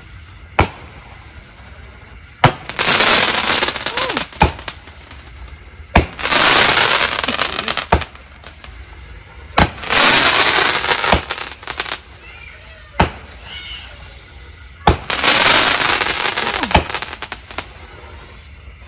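A 25-shot consumer fireworks cake firing: a sharp launch pop about every two seconds, several of them followed by a crackling burst lasting a second or two.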